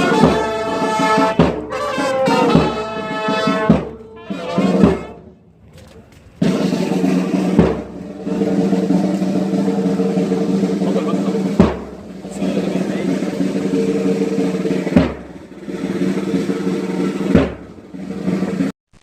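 Brass band music with drums. A melodic brass phrase gives way, about six seconds in, to a long held low chord marked by single drum strikes every few seconds.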